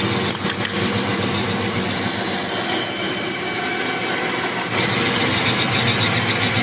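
CNC machine running, a steady mechanical hum with a whine that grows a little louder and higher about two-thirds of the way through.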